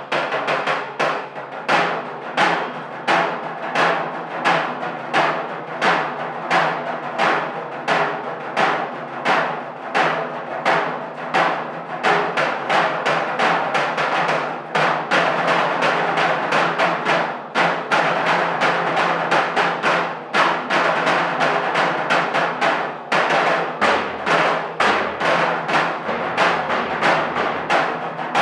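A drum ensemble playing a fast, driving rhythm of many closely spaced strokes with regular accented beats. A deeper drum part joins near the end.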